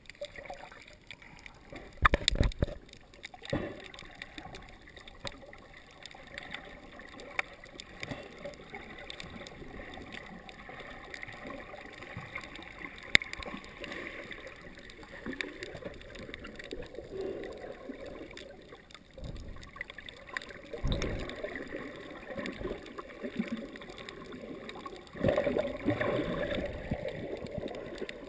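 Sea water gurgling and sloshing around a camera held just under the surface, heard muffled. Scattered clicks and a few heavy thumps come through, the loudest about two seconds in, and the water grows louder near the end.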